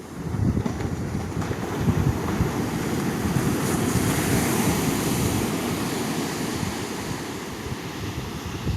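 Ocean surf: a wave washing up the beach, swelling to a hissing peak about halfway through and easing off, with wind buffeting the microphone.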